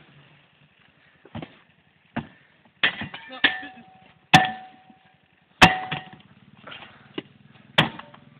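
Metal shovel striking hard, about eight sharp clanks at irregular intervals, several ringing briefly, as dirt is shovelled onto a smouldering fire and beaten at to put it out.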